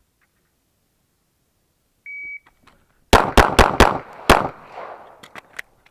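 Shot timer's start beep, a short high tone about two seconds in, followed a second later by a string of five fast handgun shots, the first four close together and the fifth after a brief pause. A few fainter shots follow near the end.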